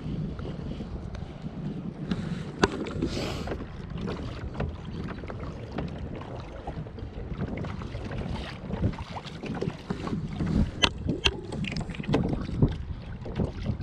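Wind buffeting the microphone and choppy water slapping against a plastic pedal kayak's hull as it moves over open sea, with scattered sharp clicks and knocks.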